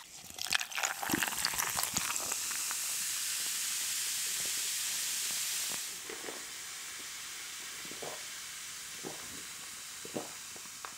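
A canned fizzy drink poured over ice into a glass mug: ice clinks, then a steady fizzing hiss. The fizz drops to a quieter hiss about six seconds in, with a few faint ticks.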